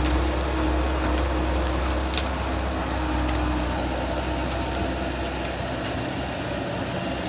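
Bobcat skid steer's engine running steadily with a low rumble that eases toward the end, and a couple of short sharp snaps about a second and two seconds in.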